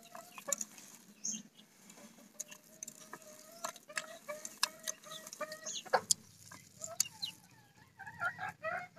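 Chickens clucking and calling in the background: a drawn-out call near the start, more clucks through the middle and a quick wavering run of calls near the end. Scattered soft clicks and squelches come from a hand mashing fish and vegetables on a ceramic plate.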